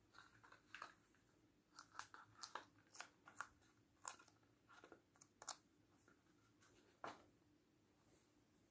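Faint, irregular clicks and taps of small objects being handled on a tabletop, a quick run of a dozen or so in the first five seconds and one more about seven seconds in.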